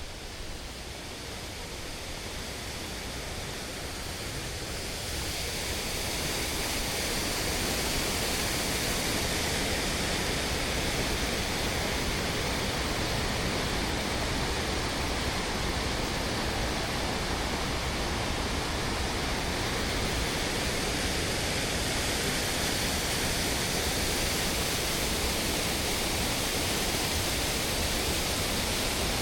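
Steady rush of fast-flowing water, as from a waterfall or swollen stream. It grows louder over the first several seconds, then holds steady.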